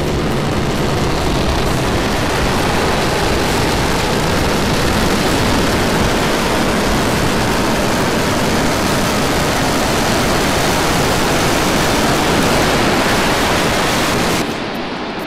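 Starship SN10's Raptor rocket engines firing in the landing burn: a loud, steady rushing noise that falls away sharply about fourteen seconds in, at touchdown.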